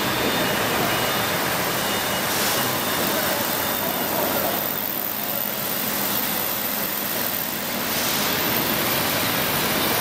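Air bubble washing machine running: a steady rushing of churning, bubbling water in its stainless-steel tank, with the spray bars pouring water in.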